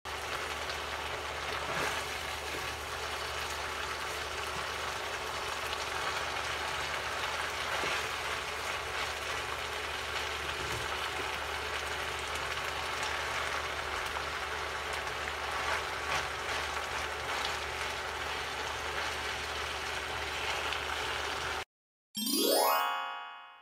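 Carrots, onion and chorizo sizzling as they sauté in a frying pan, a steady hiss with a low hum under it. Near the end the sizzle cuts off and a short rising chime jingle sweeps up and fades away.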